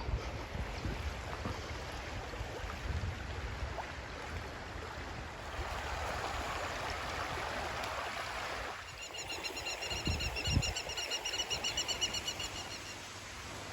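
Outdoor ambience: wind buffeting the microphone, with a steady rushing hiss in the middle. From about nine seconds in, a rapid high-pitched trill of evenly spaced pulses sounds for about four seconds.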